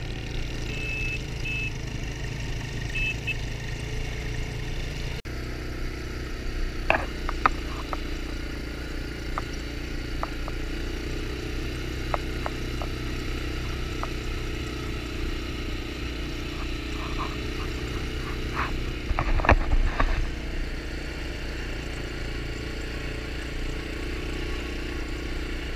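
Can-Am DS quad bike's engine running steadily while riding over sand, with scattered clicks and a cluster of louder knocks about three-quarters of the way through.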